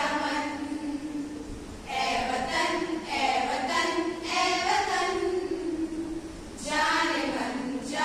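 A group of women singing a patriotic song together in unison, in phrases with short pauses between them.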